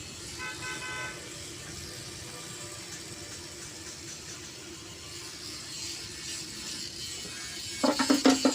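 Steady traffic-like background noise with a brief vehicle horn about half a second in, then a loud burst of several quick horn toots near the end.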